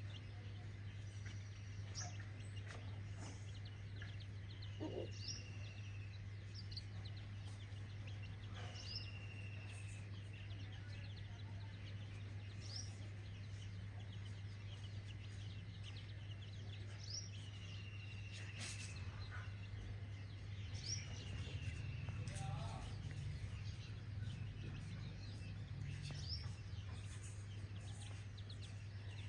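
Birds calling: a falling whistle repeated about every four seconds, with short high chirps in between, over a steady low hum.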